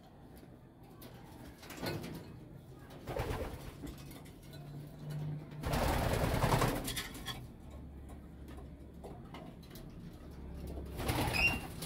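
Homing pigeons cooing in their loft, low and soft. A louder rushing noise lasts about a second just past the middle.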